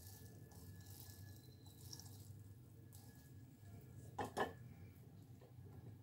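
Water dripping and squelching as soaked fried urad dal vadas are squeezed out by hand over a steel bowl. A little past four seconds in, two short knocks in quick succession as a vada is laid into a glass dish of yogurt.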